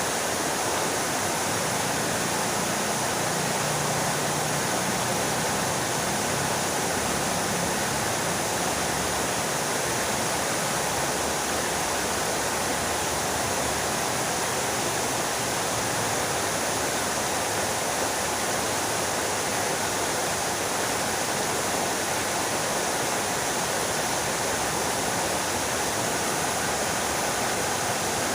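Fountain water splashing and falling steadily, an even rushing noise with no breaks.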